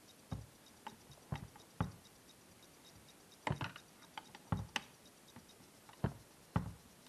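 Sharp metal clicks and taps, about a dozen at irregular intervals, from a small hand tool prying and twisting at a tiny bolt in a power seat's metal track.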